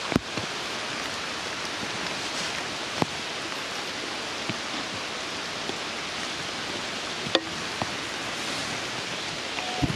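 Steady rain falling, an even hiss, with a few sharp taps scattered through it, the loudest right at the start.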